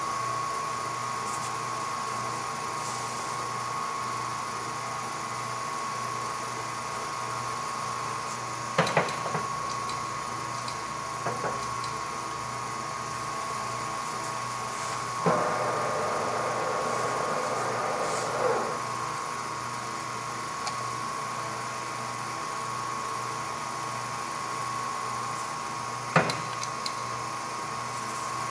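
Graziano SAG 20 lathe's electric drive running with a steady high whine and low hum, broken by a few sharp metal clunks and a short rattly stretch about halfway through.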